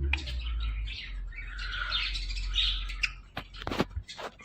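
Ringneck parrot chattering and chirping softly, followed by a few sharp clicks a little after three seconds in.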